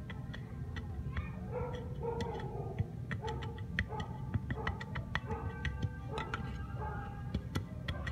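Small hand trowel digging and scraping in gritty soil: a quick, irregular run of sharp clicks and scrapes. Short pitched notes repeat over it from about a second and a half in, with a steady low rumble underneath.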